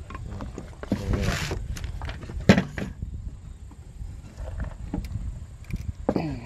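A sheet-metal fuel pump bracket being handled and squeezed around an external fuel pump: scattered clinks and knocks, a scraping rustle about a second in, and a sharp knock about two and a half seconds in.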